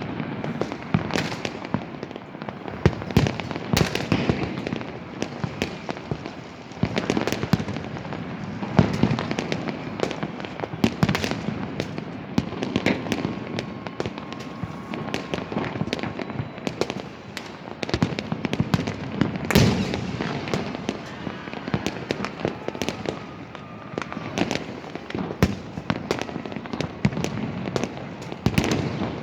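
Many fireworks and firecrackers going off at once: a dense, continuous crackle with frequent louder bangs.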